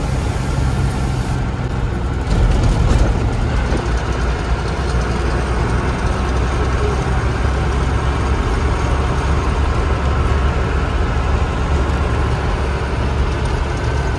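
Motor vehicle engine running steadily with road noise: a continuous low rumble.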